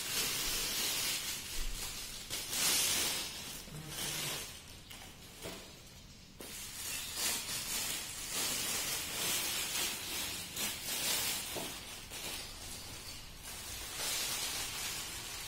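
Plastic packaging wrap crinkling and rustling as it is handled and pulled off cardboard boxes, in irregular bursts with a short lull about six seconds in.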